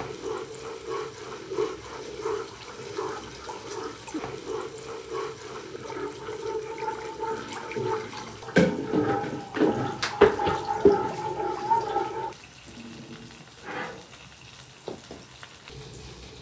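Water poured from a plastic jug into a pot of frying tomato sauce while a ladle stirs it, the hot sauce hissing and bubbling; the sound drops off suddenly about twelve seconds in.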